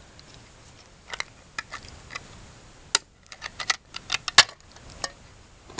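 Hand-held manual can opener worked around the rim of a metal can, giving a run of irregular sharp clicks and snaps, the loudest about two-thirds of the way through.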